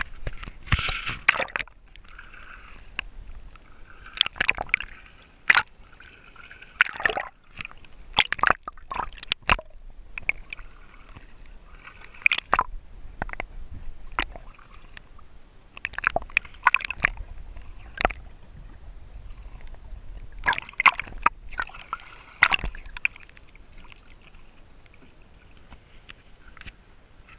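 Sea water sloshing, gurgling and splashing around an action camera as it dips in and out of the water, with many sharp knocks and splashes scattered throughout.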